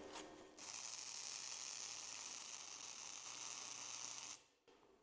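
Flux-core wire-feed welder (Harbor Freight Titanium Flux 125 running .035 wire) welding quarter-inch steel plate near its maximum output: the arc strikes about half a second in and sizzles steadily. It cuts off suddenly near the end, when the load trips the welder's 20-amp breaker.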